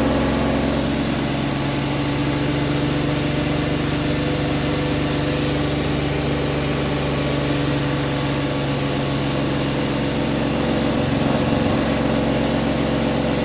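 Hoover washing machine in its final spin at 1400 rpm: a steady drum-and-motor hum with a high, even whine over it.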